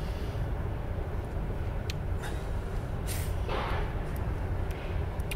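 Steady low drone of distant factory machinery. Over it come a few faint ticks and a short rustling hiss a little over three seconds in.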